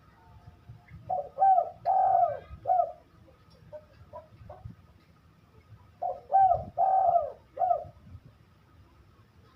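Spotted dove (deruk) cooing: two phrases of about four notes each, some five seconds apart, with a few faint short notes between.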